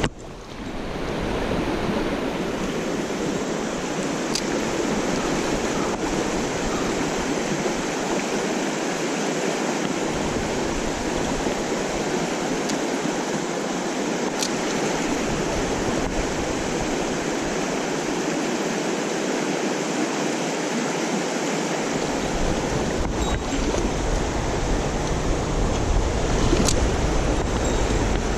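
Mountain stream rushing and babbling over rocks, a steady wash of water. A low rumble comes and goes beneath it, and there are a few faint clicks.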